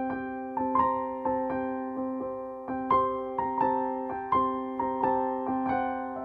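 Background music: a calm piano melody, a new note struck about every third of a second and ringing out over a steady held low tone.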